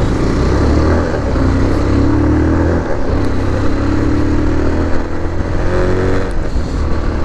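A motor vehicle's engine running on the move over road noise, its pitch rising gently twice as it picks up speed.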